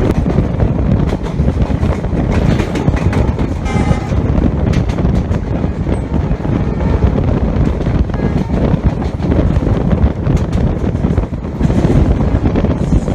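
Moving passenger train heard from on board: wind buffeting the microphone over the steady rumble and clatter of the train. About four seconds in comes one short blast of the WDP-4D diesel locomotive's horn.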